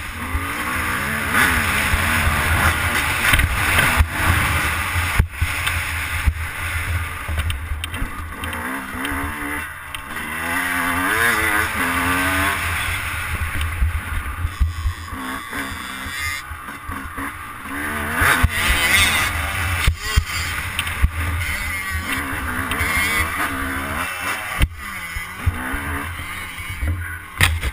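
Yamaha YZ250 two-stroke motocross bike's engine revving up and down as it is ridden hard over sand, with its pitch repeatedly rising and falling. Heard from a helmet camera, with wind rushing over the microphone.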